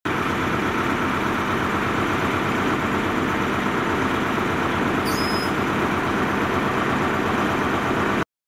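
Diesel engine of a Class 43 HST power car idling steadily at close range. A brief high beep sounds about five seconds in, and the sound cuts off suddenly near the end.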